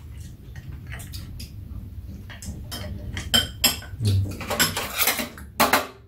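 Metal chopsticks and spoons clicking against bowls, a pan and a metal tray while eating. The clicks are sparse at first and come thicker and louder in the second half.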